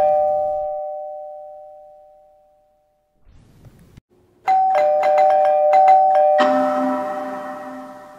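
Two-tone electronic error chime ringing out and fading. Then, after a pause, the same chime is struck rapidly about six times and ends in a louder, fuller crashing chord that fades out. This is a computer error sound effect piling up as the program 'stops working'.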